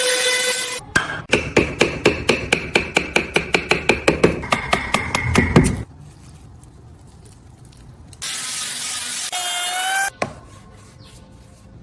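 A hand tool works wood in quick, even back-and-forth strokes, about five or six a second, for roughly five seconds. About eight seconds in, a steady whirring sound runs for about two seconds.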